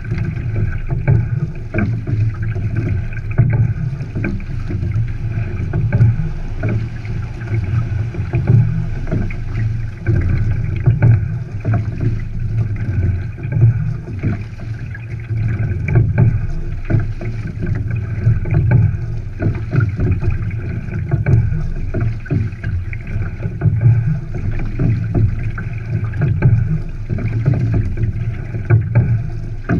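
Single scull under way: water rushing along the hull and wind on the microphone, swelling about every two seconds with each stroke, with short knocks from the oars and sliding seat.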